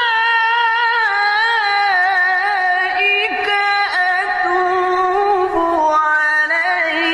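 Tilawah, melodic Qur'an recitation: a high male voice sustains one long, unbroken, ornamented phrase without pausing for breath. The pitch wavers through melismatic turns and steps down a little a few seconds in.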